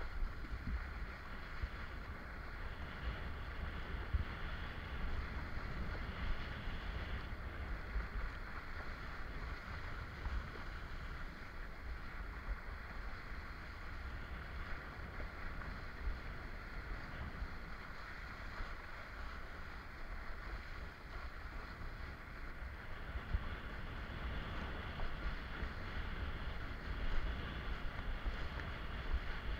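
Wind buffeting an action camera's microphone in an irregular low rumble, over a steady rush of water as a kiteboard rides across light chop.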